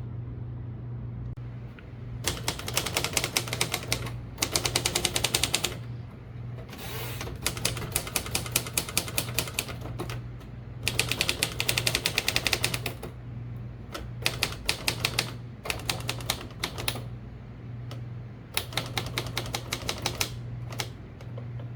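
Royal Keystone portable manual typewriter being typed on in quick runs of key strikes. There are about eight runs, each a second or two long, with short pauses between them, over a steady low hum.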